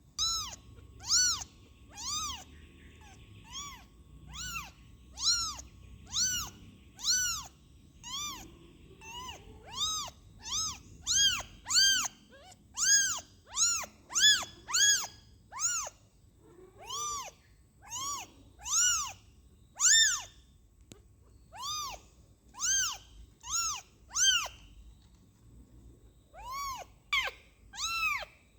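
Kitten mewing over and over, short high thin calls that each rise and fall in pitch, about one to two a second with a few brief pauses.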